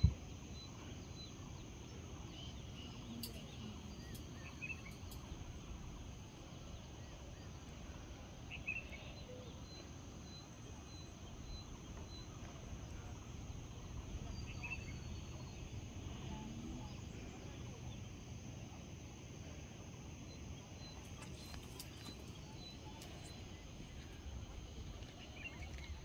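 Faint outdoor ambience: scattered short bird chirps over a low steady rumble, with a thin steady high tone underneath.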